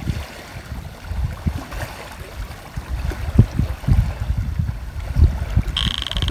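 Wind buffeting the microphone in uneven low gusts. Near the end a handheld EMF field detector starts a rapid, high electronic beeping.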